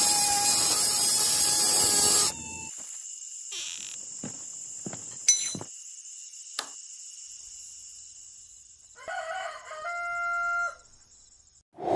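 A loud rushing noise that cuts off suddenly about two seconds in, followed by a steady high whine with a few sharp clicks. Near the end a rooster crows once.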